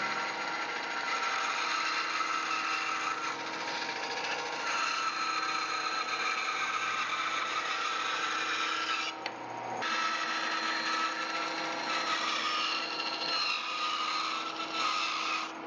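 Woodworking power tool running steadily as it cuts a solid wood block into a curved table leg. Its steady whine drops out briefly about nine seconds in, then resumes.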